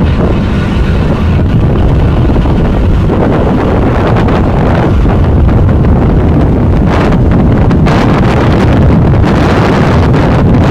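Wind buffeting the microphone over the steady low rumble of a ferry under way, its engine and the water around the hull.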